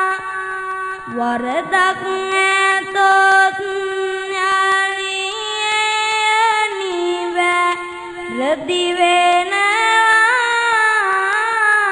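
A boy monk's solo voice singing Sinhala kavi bana verse, a slow melodic chant of long held notes that rise and fall. Twice a new line begins with a quick upward slide.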